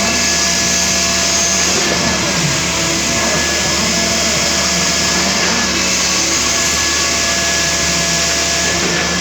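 Construction machinery running steadily: a loud, even drone with a few constant tones held over a hiss, with no change in speed.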